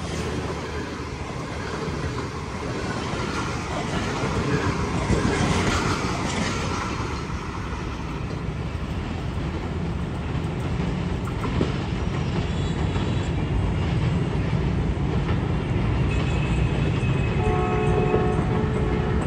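Pakistan Railways express passenger coaches rolling past at speed close by: a steady rumble and clatter of steel wheels on the rails, loudest a few seconds in.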